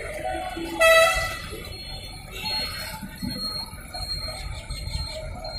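Busy road traffic running at a junction, with a vehicle horn honking loudly once for about half a second, about a second in. A thinner, high-pitched beep sounds a little later.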